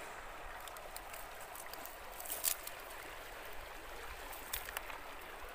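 River water running steadily, with a couple of short knocks about halfway through and again near the end.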